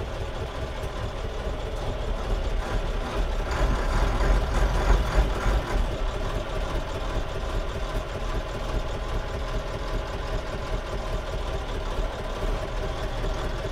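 Dennis RS130 fire engine's engine running as the truck drives, heard from inside the cab. It grows louder for a couple of seconds about four seconds in, then settles back.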